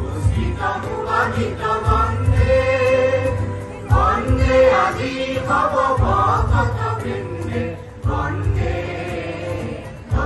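A male chorus sings an Assamese folk song together, accompanied by two acoustic guitars and a cajon keeping the beat.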